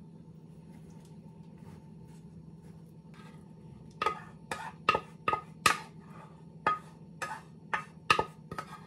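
Rice cooker inner pot knocked repeatedly while being tipped over a cloth-lined stainless steel strainer to shake out homemade yogurt: about two sharp, ringing knocks a second starting about four seconds in, after a few faint clicks of a wooden spoon scooping.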